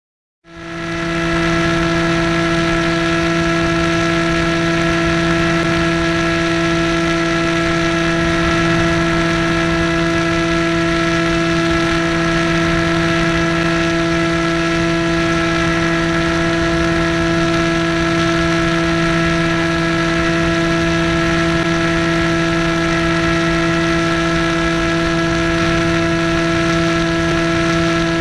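Easystar 2's electric pusher motor and propeller running at steady throttle in a climb, a constant whirring hum of unchanging pitch with airflow rush, picked up by the camera on the airframe. It fades in just after the start.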